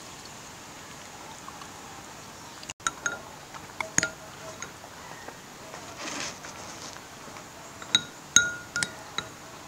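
Spoon clinking against a ceramic bowl and dishes knocking on the table: a scatter of light, ringing clinks starting about three seconds in, the loudest two close together near the end.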